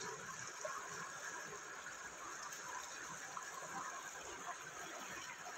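Shallow river water flowing steadily over and around rocks.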